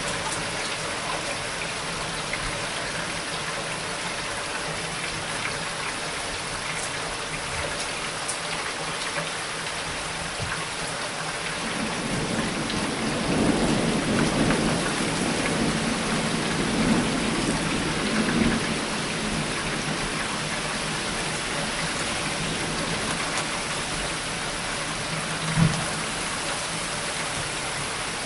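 Steady rain during a thunderstorm, with a long rolling rumble of thunder swelling up about halfway through and dying away. A single short thump comes near the end.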